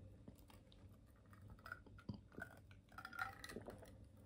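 Near silence: room tone with a few faint small clicks in the second half.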